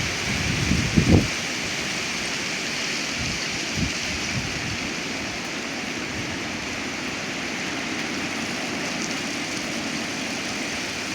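Storm-force wind blowing steadily, a constant rushing noise, with a few low gusts buffeting the microphone about a second in.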